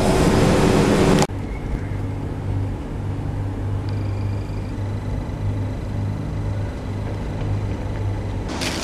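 A loud rushing noise that cuts off abruptly about a second in, followed by a steady low hum with an uneven pulse, like an engine or machine running, and another rush of noise near the end.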